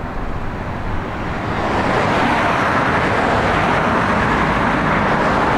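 Blue Bird All American rear-engine school bus on the move, its engine and road noise growing louder about a second and a half in and then holding steady.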